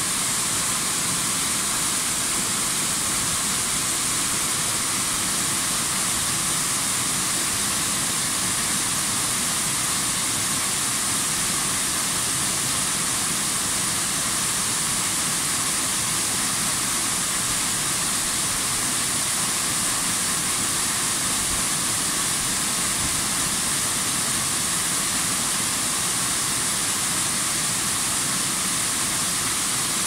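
Small waterfall pouring over a rock ledge into a pool: a steady, even rush of falling water with a strong hiss.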